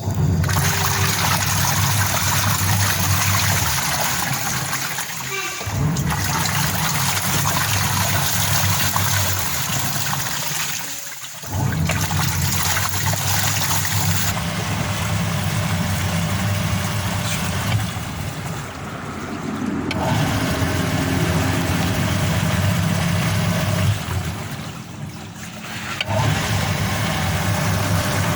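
LG washing machine's wash motor and newly fitted gearbox running on a test, with a steady humming drone and water churning. It runs in stretches of several seconds, stopping briefly between them.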